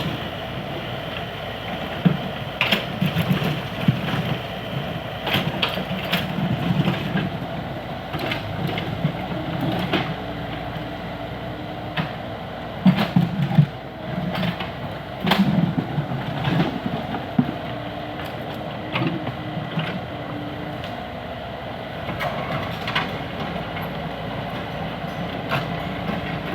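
Diesel construction machine running steadily. Its engine swells in several low surges, with scattered sharp metallic clanks and knocks.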